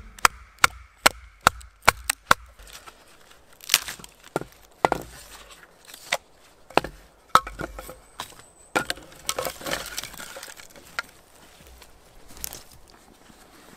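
Wood being chopped with a blade: a quick run of sharp knocks, about two or three a second, for the first couple of seconds, then slower, irregular strikes.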